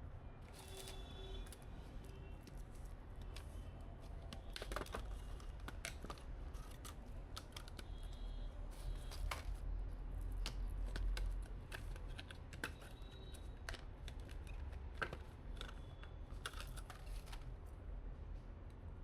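Irregular small clicks, taps and light clinks of hands handling PC components and their packaging, a few of them ringing briefly, over a steady low hum.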